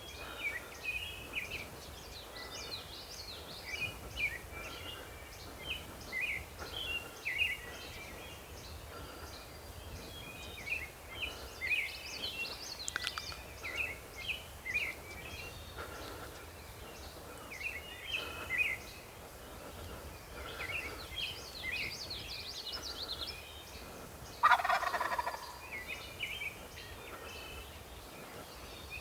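A wild turkey gobbler gobbles once, loud and lasting about a second, a little before the end, over songbirds chirping and singing throughout.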